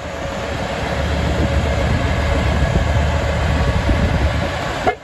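Heavy Tatra truck's diesel engine running hard under load, a deep steady rumble with rough noise, as the truck tries to pull its spinning wheels out of mud.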